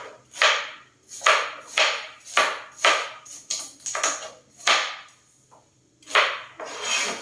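Knife chopping on a cutting board: about a dozen sharp strokes, roughly two a second, with a pause about five seconds in before a few more.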